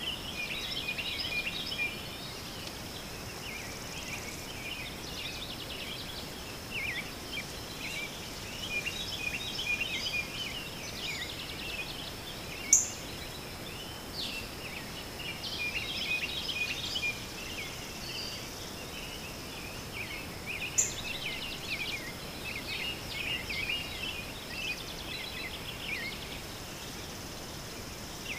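Small birds chirping and twittering in many short, broken calls over a steady thin high-pitched tone and a faint hiss, with two sharp clicks, one near the middle and one later on.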